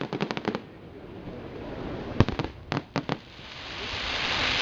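Aerial fireworks bursting: a rapid string of sharp cracks at the start, a few louder single bangs about two to three seconds in, then a swelling crackling hiss near the end.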